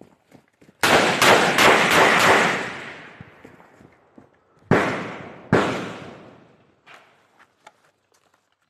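Gunfire: a rapid string of about six shots, their echoes rolling on for a second or more, then two single shots under a second apart, each with a long echoing tail. A few faint cracks follow near the end.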